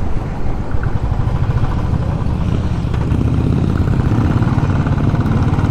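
Royal Enfield Classic 350's single-cylinder engine running under way at road speed, a rapid, even exhaust beat heard from the rider's seat.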